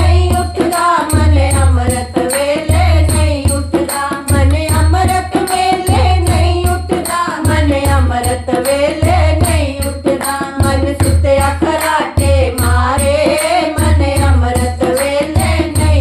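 Devotional bhajan kirtan music: a wavering melody over a steady low drum beat of about one stroke a second, with light jingling percussion.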